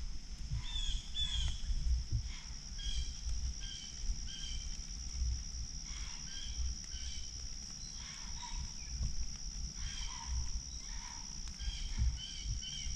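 Late-summer woodland ambience: a steady high insect drone, with small birds chirping in short calls every second or so and a low rumble underneath.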